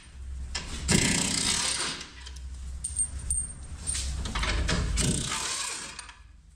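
Metal clinks and rattles of tools and parts being handled under a car on a lift, over a low steady hum. The sound fades out near the end.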